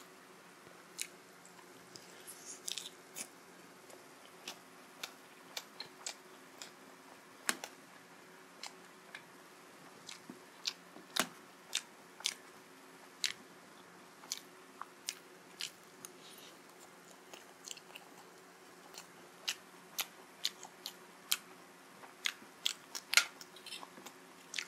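Close-miked chewing of momo dumplings and chow mein: wet mouth smacks and sharp clicks at irregular intervals, over a faint steady hum.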